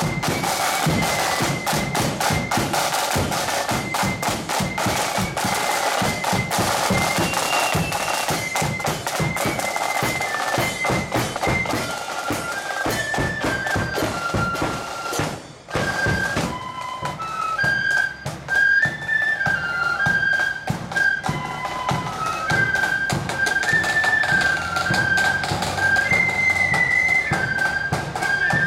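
Marching flute band playing a tune: a high melody on the flutes over rapid snare-drum rolls and beats. About halfway through the sound briefly drops and cuts, after which the flute melody stands out more clearly over lighter drumming.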